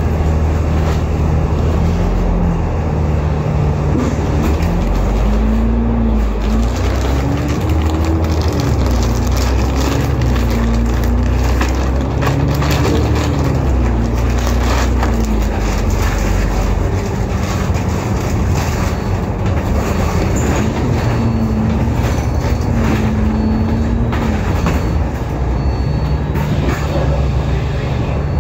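Alexander Dennis Enviro500 MMC double-decker bus running under way, heard from inside: a steady low diesel drone with a drivetrain whine that rises and falls as the bus speeds up and slows, several times over.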